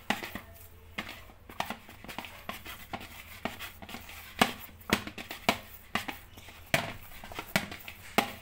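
Soft dough of glutinous rice flour being kneaded by hand in a plastic bowl: irregular squishes and knocks of the dough against the bowl, about three a second.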